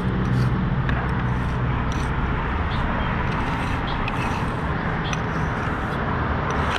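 Steady outdoor background noise, like road traffic, with a low engine hum underneath and a few faint knocks.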